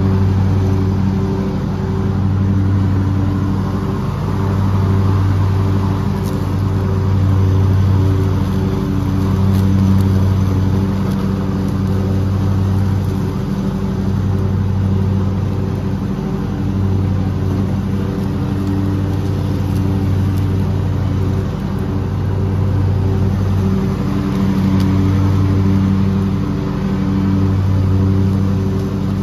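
Lawn mower engine running steadily under way across a lawn, its sound swelling and dipping every couple of seconds.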